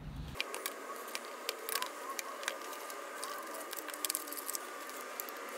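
Cardboard phone box and its paper inserts being opened and handled by hand: light rustling with many scattered small clicks and taps.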